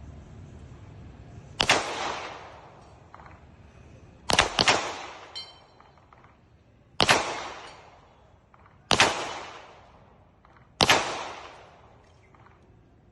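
Pistol shots fired one at a time at irregular intervals, about six in all, two of them in quick succession about four seconds in, each followed by a short echoing tail.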